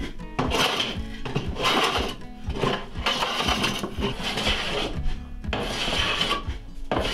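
Metal hand plane taking shavings off the edge of a bent-laminated wooden arch: repeated planing strokes about a second apart, with a short pause partway through.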